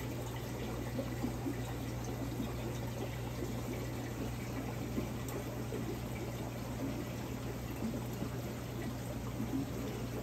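Water circulating in a large overflow aquarium, a steady running and trickling with a constant low hum underneath.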